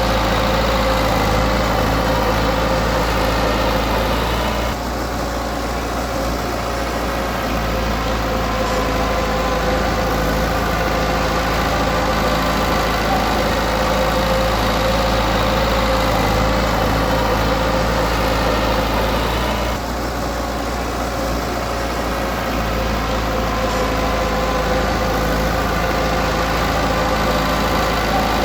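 Heavy machine's diesel engine running steadily. The sound drops slightly twice, about 5 and 20 seconds in, for a few seconds each before coming back up.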